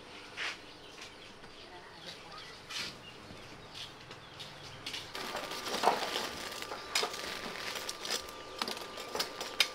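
Soft rustling and handling at first, then from about halfway a denser crackling with sharp clicks as tongs work in a grill of burning charcoal.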